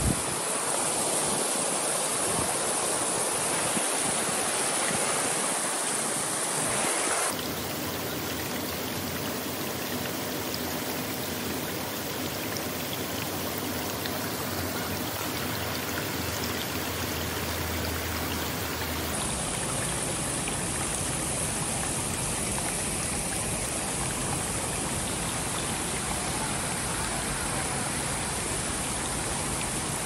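Creek water running and splashing over granite boulders and small cascades of a waterfall: a steady wash of flowing water. It changes character abruptly about seven seconds in and again about twelve seconds later.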